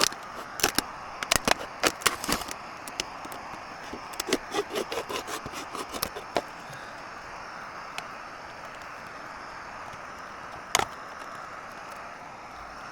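Crackles, clicks and scrapes of something being handled and shaped into an improvised bowl, dense for about the first six seconds, then one more sharp click near the end, over a steady hiss.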